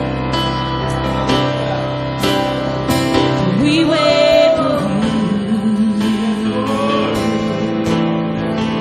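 Live worship music: guitar strumming over held chords, with a voice singing long, wavering notes about halfway through and again near the end.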